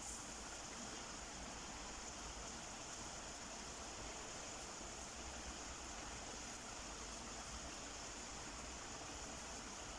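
Faint steady hiss from a pot of chana masala gravy simmering on a gas stove burner.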